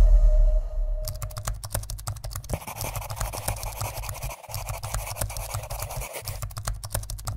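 Logo-sting sound effect: a deep boom dying away under a held mid-pitched tone, then from about a second in a dense run of rapid crackling clicks over a low rumble.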